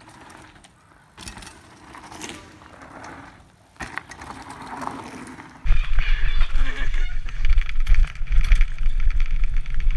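Mountain bikes riding on a dirt trail: tyre noise and small clicks and knocks as riders pass. About halfway through it cuts to a much louder steady rumble and rattle of wind buffeting and tyres on dirt, heard from on the bike as it rides fast down the trail.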